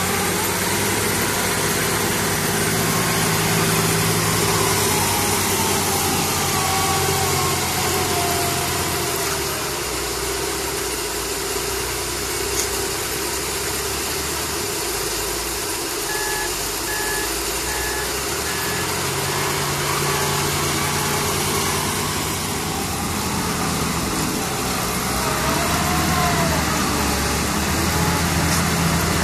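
Diesel engine of an XD958G 5-ton wheel loader running under load, its note rising for stretches as it is revved and easing off in the middle as the machine moves and works its bucket. A backup alarm beeps steadily for several seconds past the middle.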